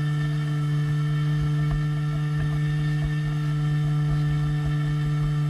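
Radio-controlled Swamp Dawg model airboat's motor and air propeller running at a steady speed, a constant hum heard close up from on board.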